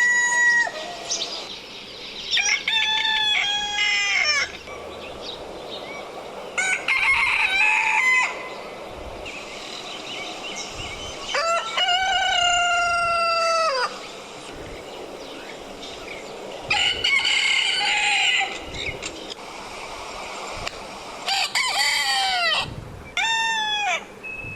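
Rooster crowing over and over: about six separate crows, each a pitched call that drops off at its end, the longest lasting about two and a half seconds near the middle.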